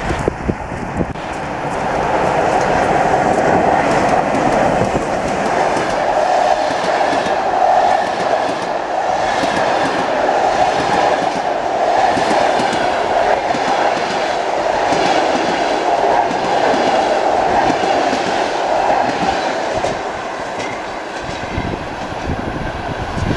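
Passenger train hauled by a ChS7 electric locomotive running through a station at speed: a steady rushing noise with the coach wheels clattering over the rail joints. It swells about two seconds in as the coaches go by and eases off after about twenty seconds as the last coach passes and recedes.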